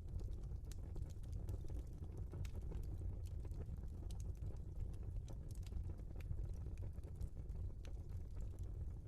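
Wood fire burning in a fireplace: a low steady rumble of flames under irregular sharp crackles and pops from the burning logs.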